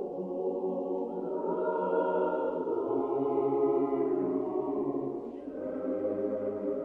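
Choir singing slow, held chords, the harmony shifting every second or two.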